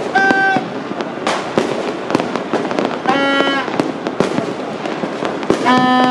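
Many fireworks and firecrackers going off at once, a dense crackle of sharp bangs. Three short horn blasts sound over it: one at the start, one about three seconds in, and one near the end.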